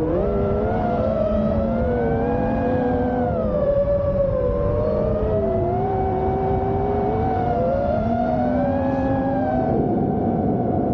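Brushless motors and propellers of a 5-inch FPV quadcopter whining, heard from a camera mounted on the quad; several pitches glide up and down together as the throttle changes. A low rush of air runs under them.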